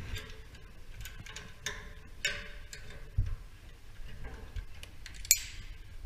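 Irregular metallic clicks and short scrapes of hardware being handled on a metal rod inside a sheet-metal duct, the sharpest click about five seconds in.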